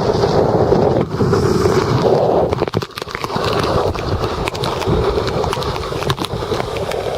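Wind rushing over the microphone of a hand-held waterproof camcorder while waterskiing behind a boat, with crackles and knocks from the hand gripping the camera. The rush drops briefly about three seconds in.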